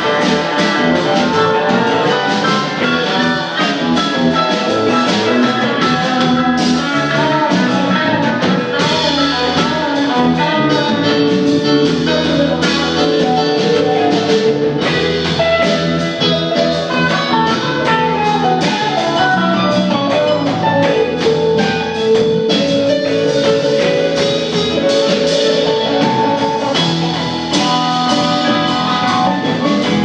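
Live instrumental band playing: two electric guitars, bass, keyboards and drum kit together, loud and steady.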